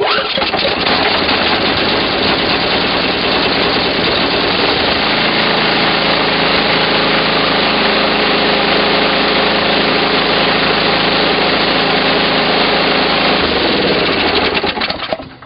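Briggs & Stratton 1150 single-cylinder engine on a Toro Power Max 826 snow blower catching and running steadily on full choke at fast throttle, the carburetor just cleaned after stale fuel had left it unable to start. About a second before the end it is shut off and winds down.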